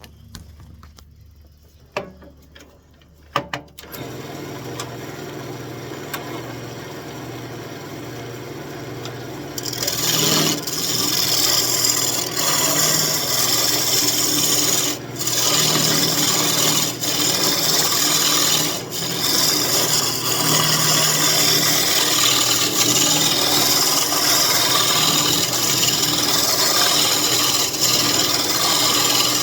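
A couple of clicks, then a wood lathe's motor starts up about four seconds in and runs steadily. From about ten seconds in, a turning tool cuts into the spinning elm spoon blank with a loud, continuous scraping hiss that drops out briefly a few times as the tool lifts off the wood.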